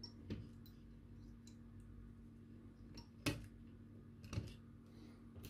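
Flush side cutters snipping the soldered resistor leads off a circuit board: a few separate sharp snips, the loudest about three seconds in.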